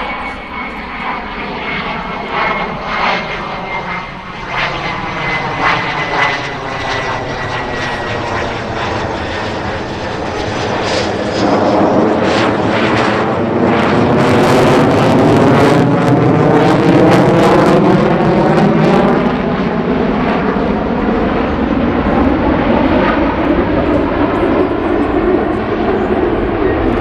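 F-35A Lightning II's single F135 turbofan engine in flight: a loud jet roar with a high whine fading away over the first few seconds. The roar swells markedly about eleven seconds in as the jet comes around close overhead, with a harsh crackle at its loudest, then stays loud.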